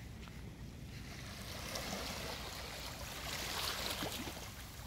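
Small waves lapping and washing over a seaweed-covered rocky shore, a soft wash of water that swells about halfway through and eases off near the end.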